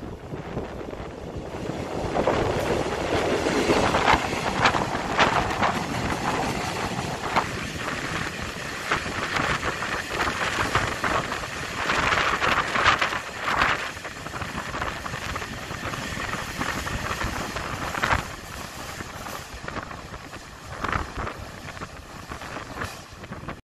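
Freight train of loaded hopper wagons rolling past: a steady rumble of wheels on rail, broken by sharp clacks at intervals, loudest about a third of the way in and again around the middle, with wind on the microphone.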